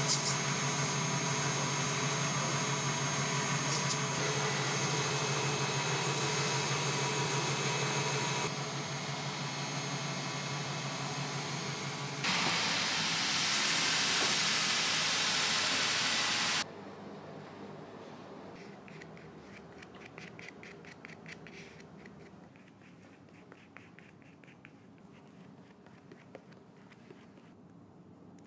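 An electric machine motor running steadily with a low hum, changing in sound twice as work is pressed against it, then switching off suddenly about 17 seconds in. Quieter scratching and rubbing follows.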